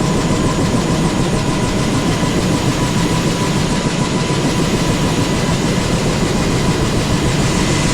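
Bell UH-1 Huey helicopter running steadily: turbine whine over a loud, constant rotor and engine noise.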